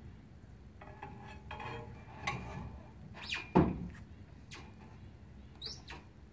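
Metal clanks and knocks as steel parts of a Jerr-Dan rollback tow truck's bed and frame are worked by hand with a bar. Some ring briefly, and the loudest knock comes a little past halfway. A short high squeak follows near the end.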